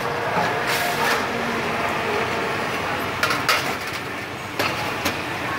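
Ceramic bowls clinking and clattering as they are lifted from a stack, a handful of short sharp knocks over steady background noise.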